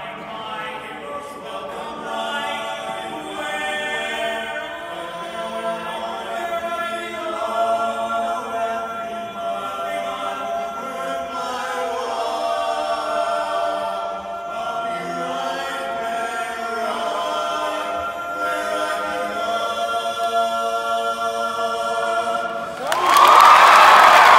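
Barbershop quartet of men's voices singing a cappella in close harmony, holding sustained chords. Applause breaks out suddenly near the end as the song finishes.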